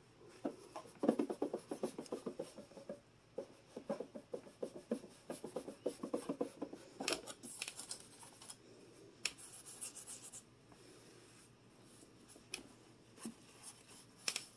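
Sponge scrubbing the stainless-steel and plastic housing of a Mr. Coffee drip coffee maker: quick rubbing strokes for about the first ten seconds, with a few sharp clicks, then only occasional light rubs.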